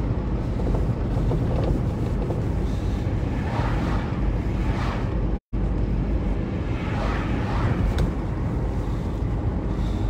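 Steady low road rumble inside a moving car's cabin, tyres and engine at cruising speed. The sound drops out completely for a split second about five and a half seconds in.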